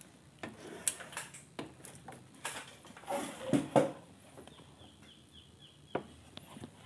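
Scattered light clicks and knocks of hands handling parts and tools on a workbench, the loudest a few knocks a little past the middle. A faint run of short high chirps comes in the later part.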